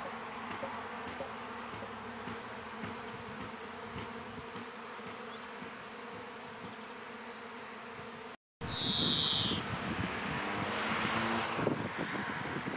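A honeybee swarm in flight: the dense, steady buzz of many bees. About eight seconds in the sound cuts out for a moment, then returns louder and more uneven, with a short, high falling whistle just after.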